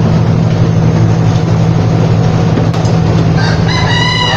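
Refrigeration vacuum pump running with a steady, loud hum, evacuating air and moisture from the air conditioner's refrigerant circuit before it is charged with R32. A short high-pitched sound joins it near the end.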